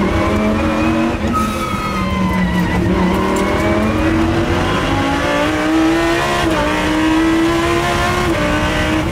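Lamborghini Huracan Super Trofeo Evo's naturally aspirated V10 running hard, heard from inside the race car's cabin with no sound deadening; the engine note climbs steadily in pitch for several seconds and dips briefly twice near the end.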